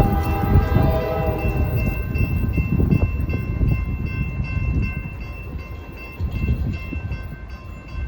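A freight train's lead GE diesel locomotive sounding its air horn, a chord that cuts off about two seconds in, over the low rumble of the passing train. The rumble slowly fades, and a thin high steady tone carries on almost to the end.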